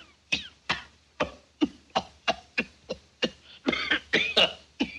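A man's coughing fit: a quick series of short, harsh coughs, about three a second, crowding closer together near the end.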